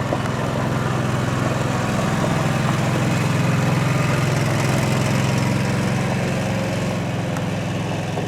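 An engine running steadily close by with a low hum, swelling a little toward the middle and easing off near the end.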